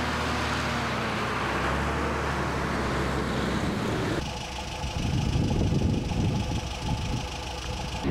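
Heavy military tractor truck's engine running steadily as it tows a loaded missile transporter-loader trailer past. About four seconds in, the sound changes abruptly to an uneven low rumble.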